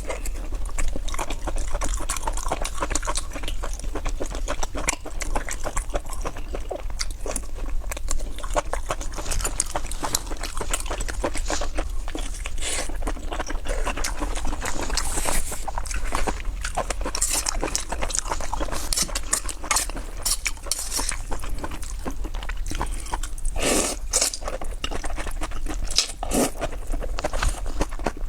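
Close-miked eating of kimchi noodles: continuous chewing with a dense run of small wet mouth clicks and crackles.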